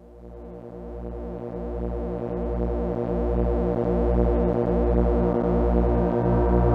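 Electro-Faustus Drone King drone synthesizer run through a Microcosm delay pedal: a low sustained drone with many steady overtones that fades in and swells over the first few seconds, its bass pulsing a little faster than once a second.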